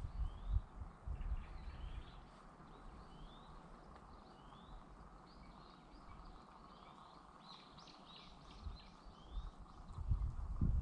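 Birds calling: a long series of short, high chirps, about one or two a second. A low rumble sits under them in the first two seconds and again near the end.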